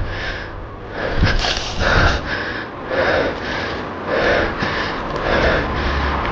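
A person breathing hard, panting in quick repeated breaths close to the microphone.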